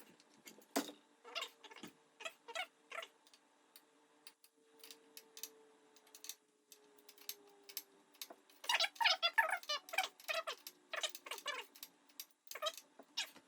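Clicks and taps of hand tools and parts being worked on a bicycle's handlebar and stem, scattered throughout, with a quick run of ticking about nine seconds in, over a faint steady hum.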